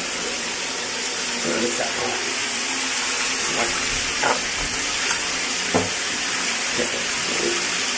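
Tap water running steadily into a filling bathtub, an even rushing hiss, with a few faint short knocks and clicks on top.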